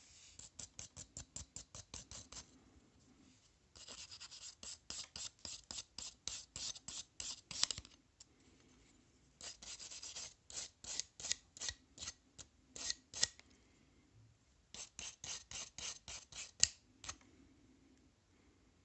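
Hand abrasive rubbed back and forth over a rusty vintage awl during restoration: four runs of quick scraping strokes, about four or five a second, with short pauses between runs.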